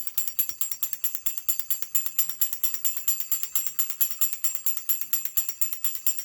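Clockwork spring motor of an antique tin wind-up Pinocchio toy running after being wound, with a rapid, even train of sharp metallic clicks and a faint tinny ringing.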